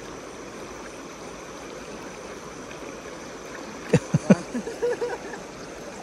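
Shallow, clear river flowing over stones: a steady rush of water. A few short calls break in about four seconds in.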